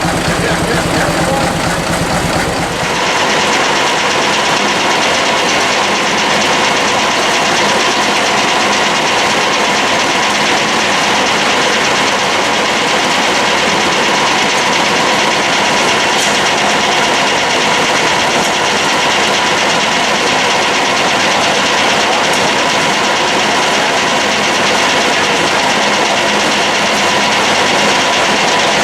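Steam traction engine belted to a sawmill, running. A low, rhythmic beat in the first few seconds changes abruptly about three seconds in to a steady, even mechanical whir with a faint hum.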